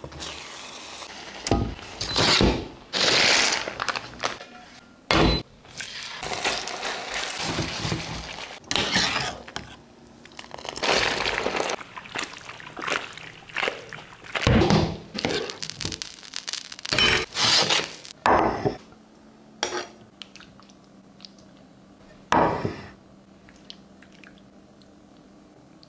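Kitchen cooking sounds: a spoon stirring and scraping through thick meat sauce in a cast-iron pan, and pasta being tossed in a pan, with sharp knocks and clatters of utensils against the cookware.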